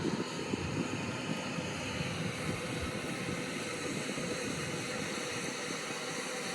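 Combine harvester running in the field: a steady mechanical drone with faint whining tones over it.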